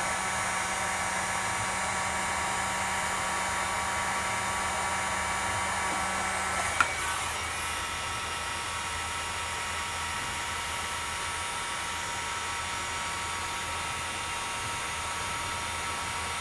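Electric heat gun blowing steadily, shrinking heat-shrink tubing over soldered wire splices. There is a click about seven seconds in, after which a low hum drops out and it runs a little quieter.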